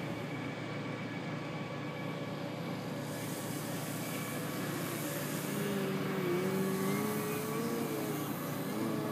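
Electric Motrolfly 2820 brushless motor and Xoar 13x7 propeller of a 48-inch Extreme Flight Laser model aerobatic plane running under throttle while the plane hovers nose-up low over the ground. Its tone grows stronger from about halfway through and wavers up and down as the throttle is worked.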